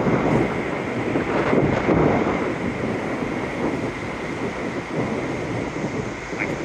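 Strong wind rushing and buffeting the microphone, a dense, steady noise that eases slightly after the first couple of seconds.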